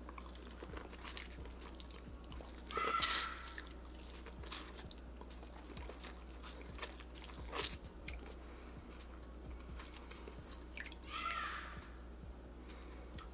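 Close-miked eating sounds: a person chewing and smacking on food dripping with Cajun butter sauce, with scattered small wet clicks and two louder wet slurps, about three seconds in and again near the end.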